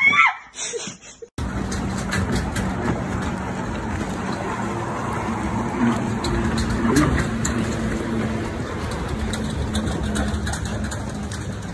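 A brief loud falling cry at the very start. After that, a jet ski's engine runs at a steady low hum beside open water, with wind buffeting the microphone.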